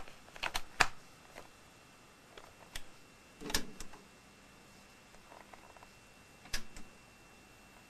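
Scattered sharp clicks and knocks of a cassette deck being handled and switched on, its buttons and plastic parts worked by hand: a quick cluster of clicks near the start, a heavier knock about three and a half seconds in, and two more clicks later.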